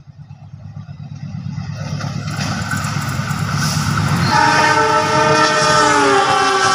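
Diesel-electric locomotive CC 206 13 55 approaching with a growing low engine rumble, then sounding its multi-tone air horn from about four seconds in, the horn's pitch dropping slightly as the locomotive passes.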